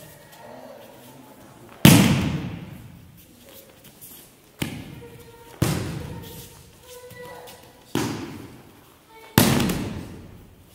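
Aikido breakfalls: a body thrown onto gym mats, hitting them five times with sharp slaps, each echoing in a large hall. The first, about two seconds in, is the loudest.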